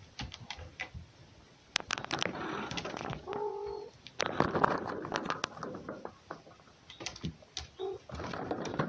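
A short, steady animal call about three and a half seconds in, set among irregular rustling and clicking.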